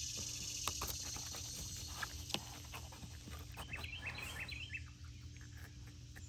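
Outdoor ambience: insects, crickets included, keep up a steady high hiss that fades over the first few seconds. A few light clicks come as a knife works along a snapping turtle's skin, and a bird gives a quick run of short chirps about four seconds in.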